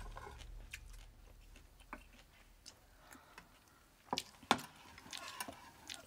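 Chopsticks and spoons clicking against stainless-steel rice bowls and side-dish plates during a meal: scattered light clinks, several close together in the second half, the loudest about four and a half seconds in.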